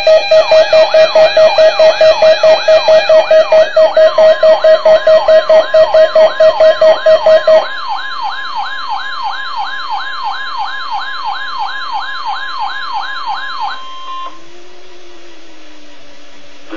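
Several NOAA weather radios sounding their alert alarms for a Required Weekly Test: a loud beeping about five times a second over a repeated rising whoop about three times a second. The beeping stops about eight seconds in and the whooping about fourteen seconds in, leaving a faint low wavering tone.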